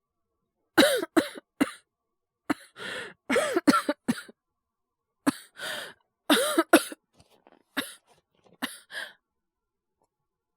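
A man coughing in repeated short fits of two to four coughs, with breaths drawn between the fits and smaller coughs near the end. It is acted coughing, portraying a cold that has got worse.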